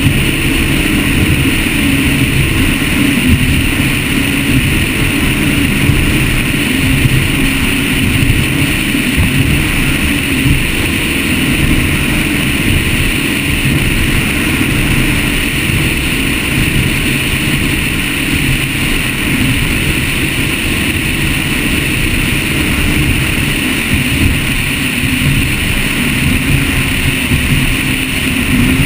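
Motion Powerboats 43GT catamaran running steadily under way: a continuous engine drone mixed with the rush of wind and water over the bow.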